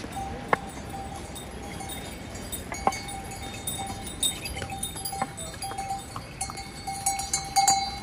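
Harness bells on pack mules and ponies jingling as the animals walk past, with sharp knocks from hooves on the stone path. The bells ring more densely and loudest near the end.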